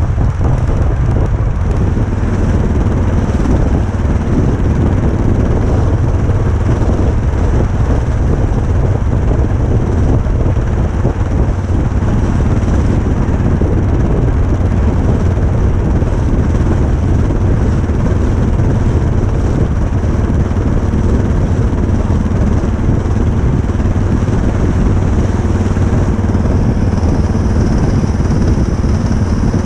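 Motorcycle engine running steadily, with wind rumbling on the microphone. A faint steady whine joins the sound about 26 seconds in.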